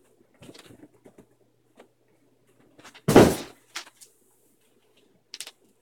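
Handling noises as a computer monitor is lifted out of its cardboard box and packing: light knocks and rustles, then one loud thump about three seconds in.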